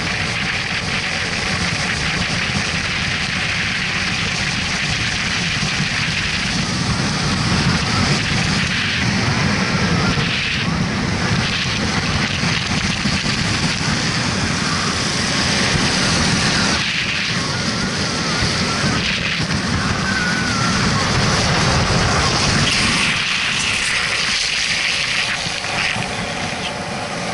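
Steady rush of wind buffeting the microphone, with low road rumble from travelling fast down a paved road.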